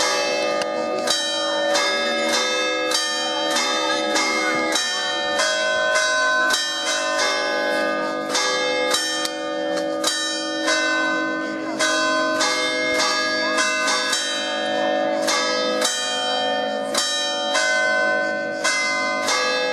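Church tower bells, cast in 1850, ringing in a continuous peal: several bells of different pitch struck in quick succession, about two strokes a second, each stroke ringing on into the next.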